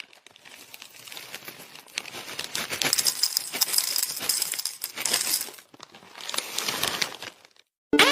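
Handling noise: a stretch of small clinks, rattles and crinkling, as of kitchen things being handled, pausing briefly about three-quarters of the way through.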